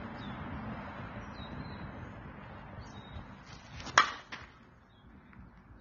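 A slowpitch softball struck by a Louisville Slugger Genesis composite bat: one sharp crack of contact about four seconds in, with a brief ring. Faint bird chirps sound in the background.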